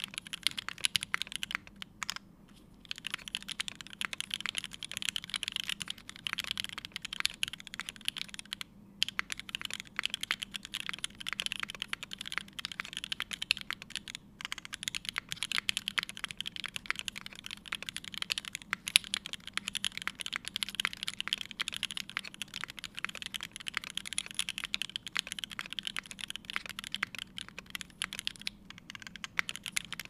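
Steady, fast typing on a Keycult No.2/65 mechanical keyboard with a brass plate, lubed and filmed Alpaca linear switches and GMK keycaps, broken by a few brief pauses.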